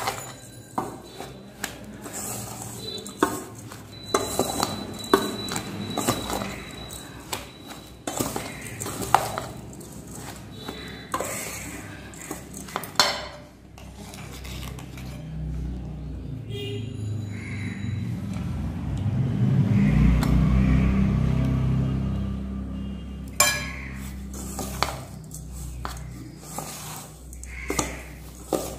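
Metal spatula stirring and scraping through a stiff mix of ground puffed rice, rice flour and jaggery syrup in a stainless-steel bowl, clinking against the bowl's sides. In the middle the clinks thin out while a low rumble swells and fades.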